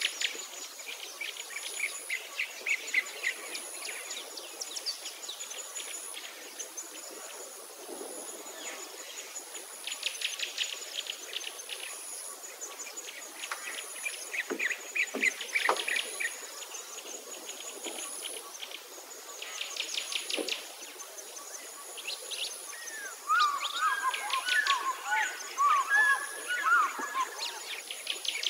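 Outdoor natural ambience: birds calling in repeated rapid trills over a steady, pulsing high insect chirping. About two-thirds of the way in comes a louder run of wavering, warbling calls.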